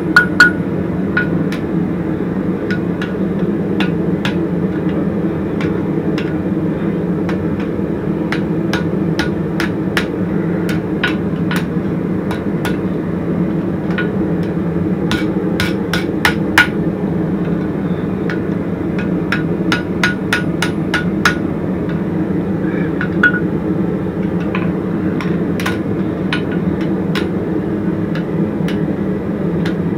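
Hand hammer striking a red-hot horseshoe bar held in tongs on a Hay Budden anvil, quick light blows in irregular runs rolling a scroll into the end, with the anvil ringing now and then. A steady low hum runs underneath.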